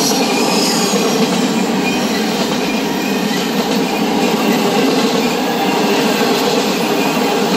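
Intermodal well cars of a CSX freight train rolling past at speed: a loud, steady rumble and clatter of steel wheels on the rails.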